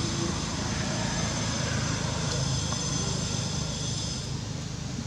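Steady low engine rumble of a motor vehicle, with a thin, steady high-pitched whine over it that stops about four seconds in.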